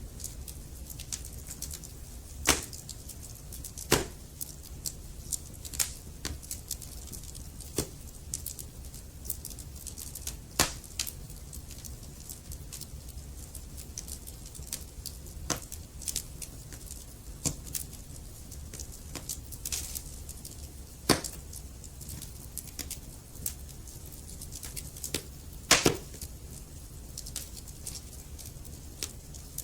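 Burning wood logs crackling, with irregular sharp pops over a soft steady rumble of the fire; a few louder pops stand out, the loudest about 4, 21 and 26 seconds in.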